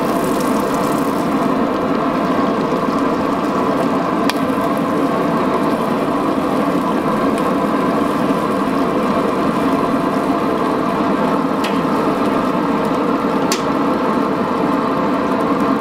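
Red-hot 52100 steel knife blade held in tongs in a quench tank, the liquid boiling and bubbling steadily around it as the blade is hardened. A few short clicks come through, about four seconds in and twice near the end.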